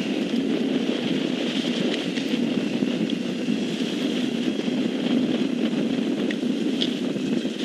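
Steady rumble and hiss of an intermodal freight train's cars rolling past, picked up by an outdoor railcam microphone, with a few faint clicks.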